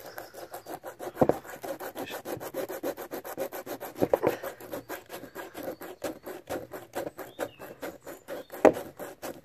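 A worn disc from an old disc cutter, held in the hand and scraped in quick, even back-and-forth strokes, several a second, over a plastic bumper, with a few sharper knocks. The strokes are shaving raised ridges and gouges smooth on the faded plastic.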